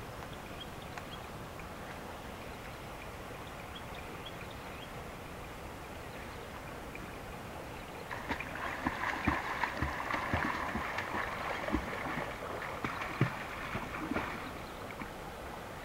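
Faint steady water sound, then about halfway through several seconds of irregular splashing and sloshing from swimming in a pond, which dies away shortly before the end.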